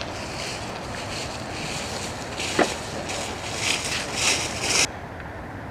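Wind buffeting the microphone, with a rushing hiss that stops suddenly near the end and one sharp knock about two and a half seconds in.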